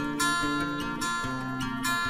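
Background music of strummed acoustic guitar chords, the chords changing about every half second.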